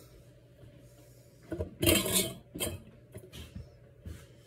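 Chunks of kielbasa dropped through a stainless steel funnel into a glass mason jar, knocking and sliding against the funnel and glass. Scattered knocks from handling the jar come after.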